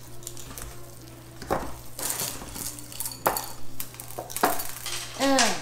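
Cookie dough being stirred in a mixing bowl: scraping, with a few sharp knocks against the bowl. A young child makes a short vocal sound near the end.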